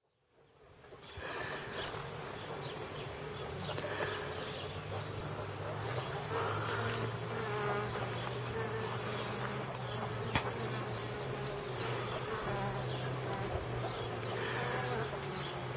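Honeybees on the open frames of a hive giving a steady low hum, with a cricket chirping evenly in the background, about two to three chirps a second.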